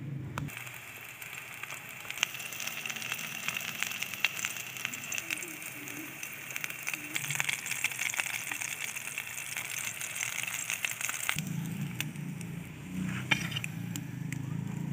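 Chicken kebab patties frying in hot oil in a steel pan, a steady sizzle with constant fine crackling. About eleven seconds in, the sizzle stops and a low steady hum takes over.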